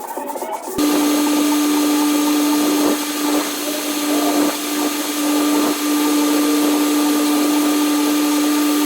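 Hot-water pressure washer spraying oil-stained asphalt: a steady hiss of spray over a constant machine drone, cutting in abruptly about a second in after a moment of background music.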